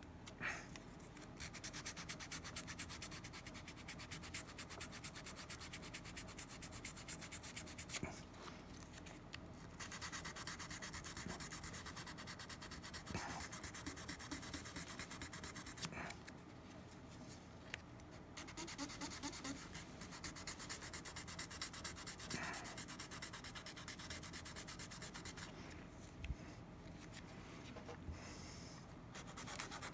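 Hand-sanding with a small piece of 320-grit sandpaper on the bite plate of a metal mouthpiece: rapid back-and-forth scraping strokes, broken by a few short pauses. At this stage the sanding removes the scratches left by the coarser 220 grit.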